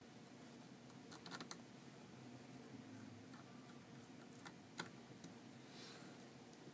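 Faint, sparse clicks of a small screwdriver and screws being worked into a laptop's metal screen-hinge bracket, over quiet room tone: a short cluster of clicks about a second and a half in, then two single clicks a little past the middle.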